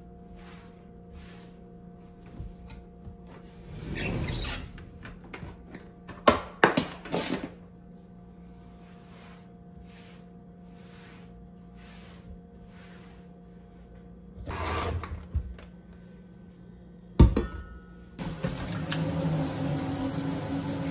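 Kitchen appliances being handled and set down on a countertop: a few soft scuffs and knocks and one sharp thunk. Near the end a kitchen tap starts running into a stainless steel sink.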